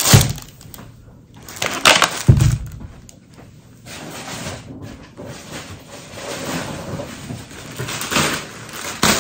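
Groceries being handled and set down: a few knocks and thuds, the heaviest about two and a half seconds in, followed by softer rustling of packaging.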